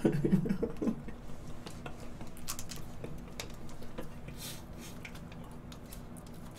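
A metal spoon scraping and clicking against a plastic parfait cup of soft ice cream, in scattered short clicks, after a brief laugh at the start.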